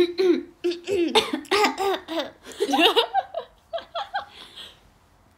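Two young women laughing together in short repeated peals, fading out near the end.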